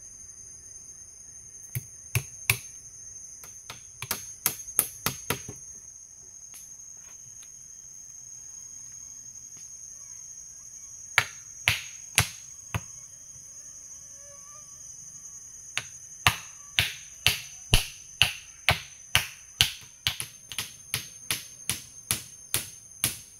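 Hammer blows on wood, typical of driving nails: a few strikes, a quick run, then a steady series of about two a second near the end. A steady high insect drone runs underneath.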